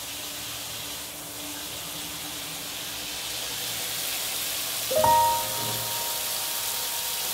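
Shower water spraying after the wall taps are turned on, a steady hiss that grows slowly louder. About five seconds in, a held musical chord starts over it.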